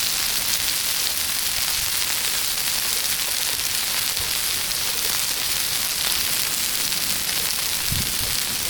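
Chicken tenders sizzling in oil on a flat-top griddle: a steady hiss, with a brief low thud about eight seconds in.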